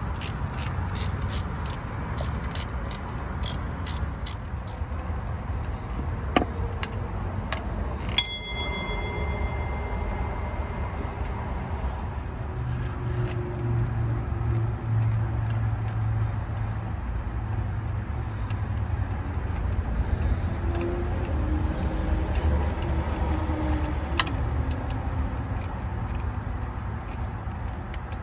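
Hand ratchet clicking, about three clicks a second for the first few seconds, as bolts are run in on a new water pump on a 6.0 LS V8. About eight seconds in, a sharp metal clink rings briefly. Fainter, scattered ratchet clicks follow over a steady low rumble.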